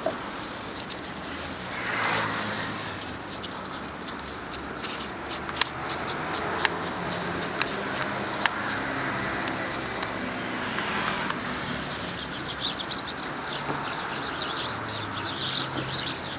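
Rubbing and scraping with scattered sharp clicks throughout.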